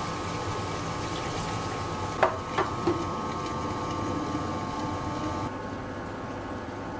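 Ultra tabletop wet grinder running steadily with a motor hum and whine, its stone rollers grinding soaked rice and millet with water into idli batter. A few sharp plastic clacks about two seconds in as the lid is set on.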